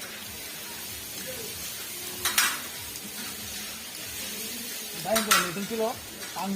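Steady sizzling hiss, with two short louder bursts about two seconds in and about five seconds in.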